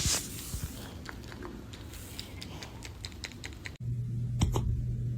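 Light, irregular clicking and tapping. About two-thirds of the way through it cuts off sharply, and a steady low hum begins with a couple of louder clicks.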